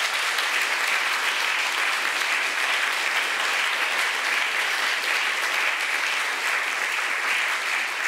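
An audience applauding: dense, steady clapping from many hands that keeps up at an even level throughout.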